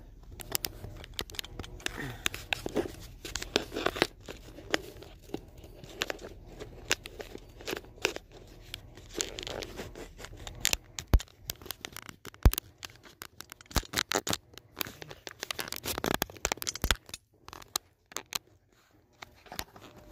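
Handling noise of a smartphone: fingers and skin rubbing and knocking against the phone right at its microphone, making an irregular run of clicks, scrapes and rustles, loudest a little past halfway.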